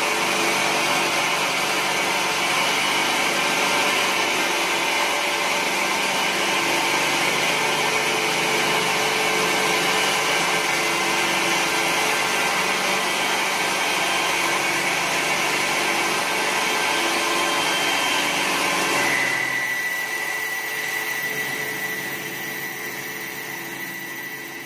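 CNC wood lathe running, its cutter shaping a spinning wooden spindle with a steady, loud cutting and motor noise. About 19 seconds in, the cutting noise drops away and the sound fades, leaving a thin steady high whine.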